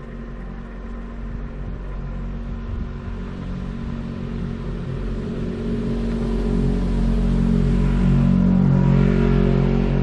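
A car engine running steadily, growing louder over the second half.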